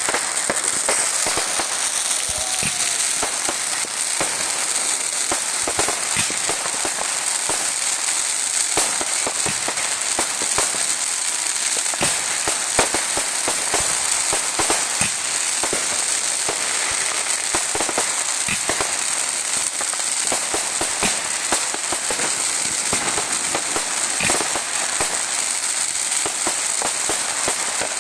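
Aerial fireworks going off continuously: a dense crackle of many sharp pops and snaps from the bursting shells and their glittering trails.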